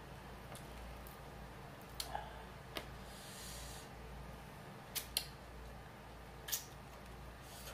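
Close-miked lip smacks and finger-licking clicks from eating a sauce-covered chicken wing: about six sharp smacks, two pairs in quick succession, with a brief hiss about three seconds in.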